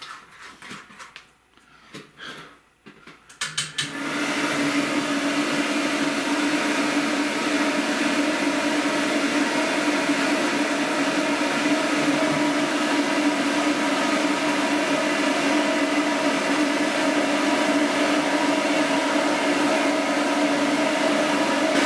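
Pet blow dryer switching on about four seconds in and then running steadily, a loud whoosh of air over a steady motor hum, drying a freshly washed dog's coat. Before it starts there are only a few faint knocks.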